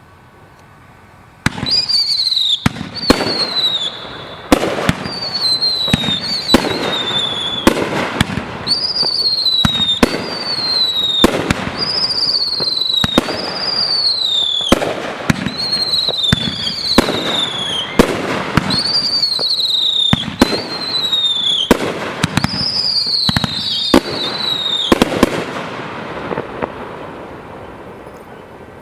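Two 9-shot consumer firework cakes firing, a bang about once a second, each shot followed by a whistle falling in pitch. It starts about a second and a half in and ends a few seconds before the end, leaving a fading tail.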